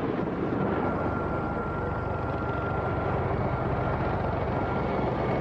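Helicopter in flight: a steady, dense chopping of rotor and engine noise with a thin steady whine above it.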